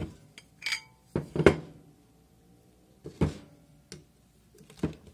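Metal mold-frame plates clinking and knocking against each other and being set down on a plywood workbench as the mold is taken apart: a handful of separate knocks, the loudest about one and a half seconds in, one with a short metallic ring.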